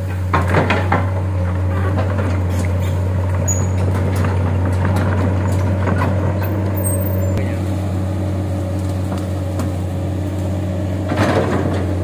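Komatsu hydraulic excavator's diesel engine running steadily under working load, a deep constant hum. Brush and branches crack and snap as the machine pushes through the vegetation, in a short flurry about half a second in and again near the end.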